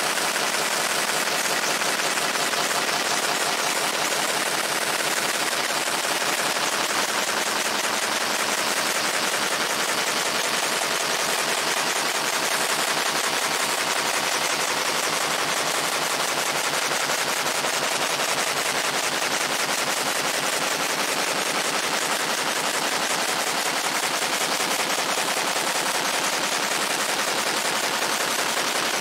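Fiber laser engraving the steel head of a sledgehammer: a steady, dense, rapid crackle as the beam ablates the metal surface.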